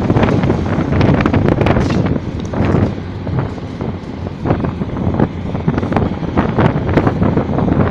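Hitachi ZAXIS 870 demolition excavator breaking down a concrete wall: its diesel engine running under irregular cracks, crunches and clatter of falling concrete rubble, with wind buffeting the microphone.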